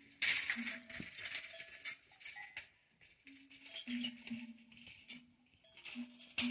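Irregular metallic clinking and rattling from an aluminium milk churn, its lid and handle knocking as it is carried along.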